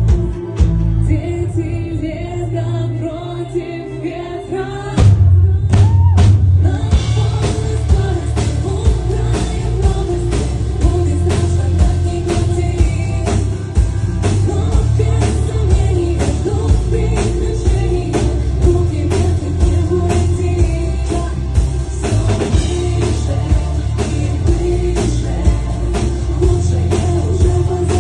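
Rock song with a singer over drum kit and band; the full band comes in louder about five seconds in, with a steady drum beat.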